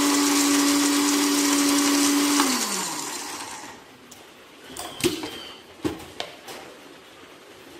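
Small electric blender grinding peanuts with a steady motor whine. About two and a half seconds in it is switched off and the motor winds down, falling in pitch. A few sharp plastic clicks and knocks follow as the jar is lifted off its base.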